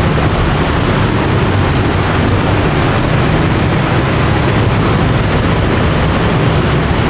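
Steady hum of busy street traffic, an even wash of engine and road noise with no single vehicle standing out.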